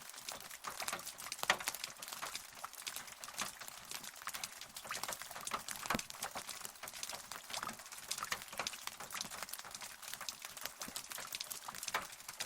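Steady rain: a dense patter of separate drops striking a surface, with now and then a louder single drop standing out.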